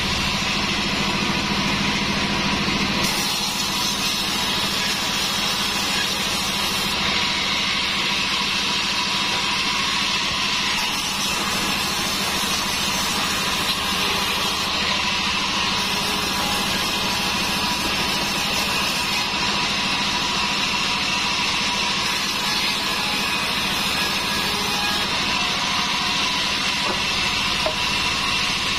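Sawmill band saw running and ripping through a log slab: a steady machine drone with a constant whine, and a high hiss from the blade in the wood that switches on and off several times as the log is pushed through.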